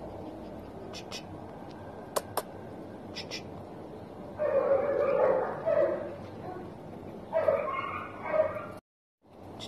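Dog yipping and whining in two bouts, one about four seconds in and another around seven and a half seconds, over a steady hiss with a few light clicks; the sound drops out abruptly near the end.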